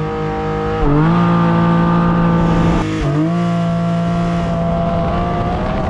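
Porsche Cayman GTS 4.0's naturally aspirated 4.0-litre flat-six at full throttle in a launch-control start. The engine note dips briefly at two quick PDK upshifts, about a second in and about three seconds in.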